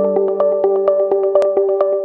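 Background electronic music: sustained synthesizer notes over a steady beat of about four strokes a second.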